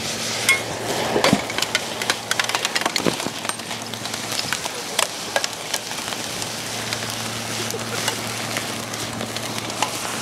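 Thermite burning inside a porcelain urinal, with a dense run of sharp cracks and pops as the hot charge breaks the porcelain apart and throws sparks. The loudest cracks come about half a second and a second in, then the crackling thins out after about five seconds into a steady hiss of burning.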